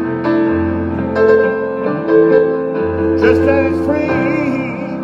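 Live instrumental break in a song: an electric keyboard with a piano sound playing held chords alongside a guitar, with no singing.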